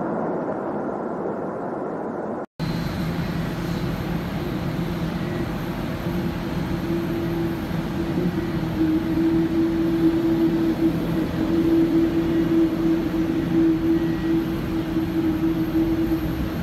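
Jet airliner noise: a deep rumble for about two and a half seconds, then an abrupt cut to a steady drone with a constant low hum and a faint high whine around a parked or taxiing Boeing 787.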